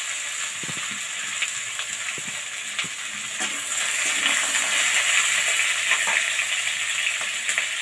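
Cubed potatoes sizzling as they fry in hot mustard oil in an aluminium kadai, stirred with a metal spatula. The sizzle grows louder about four seconds in.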